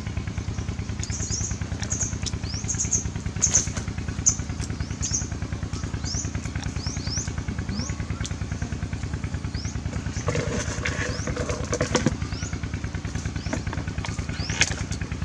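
A small engine running steadily with an even, rapid beat. Short high rising chirps repeat over it, and there are a few knocks and some clatter past the middle.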